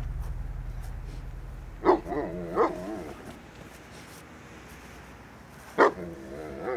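A dog barking: two barks about two seconds in and one more near the end, each trailing into a short wavering whine. A low rumble fades away over the first few seconds.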